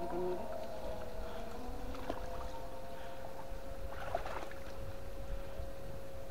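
A steady machine whine holding one pitch, sagging slightly about a second and a half in, over a low rumble. A short splashy noise comes about four seconds in.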